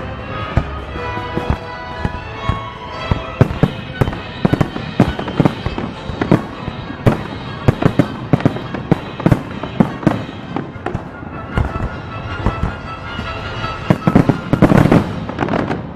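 Fireworks display: a quick string of sharp bangs from bursting aerial shells, several a second, with a dense, loud volley of bangs and crackle near the end.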